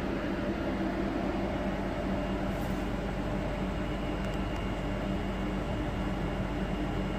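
Steady hum of a standing sleeper train carriage's air conditioning and onboard equipment running, with a couple of low held tones.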